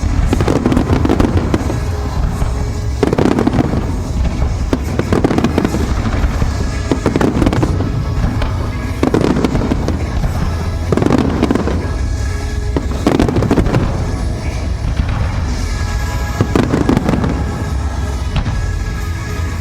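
Fireworks shells bursting in a run, one about every two seconds, each a sudden bang with a crackling, echoing tail, over music with steady held tones.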